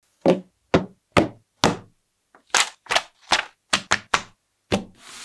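About ten sharp knocks and taps in quick succession, with silence between: cardboard kit boxes and paper instruction booklets being handled and set down.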